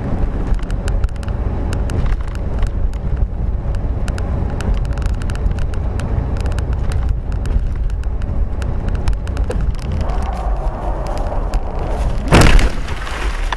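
Dashcam audio of a moving car: a steady low road and engine rumble with a lot of small clicks and crackles. About two seconds before the end a harsher rushing noise comes in, then a single loud impact, the loudest sound here.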